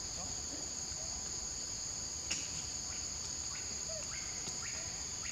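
Steady, high-pitched insect chorus droning without a break, with a few faint short chirps and a single click about two seconds in.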